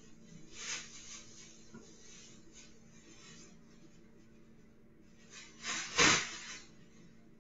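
Rustling and knocking as a person handles a black bag and other items on a hard floor. There is a short noise a little under a second in and a louder clunk about six seconds in.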